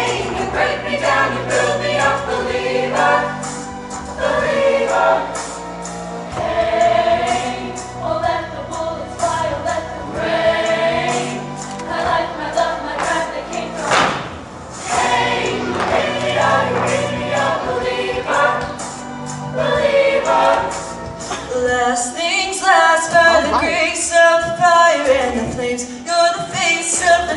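Show choir singing in parts with dance choreography over an accompaniment with a sustained bass line, which drops away in the last few seconds, leaving mostly voices. A single sharp hit about halfway through.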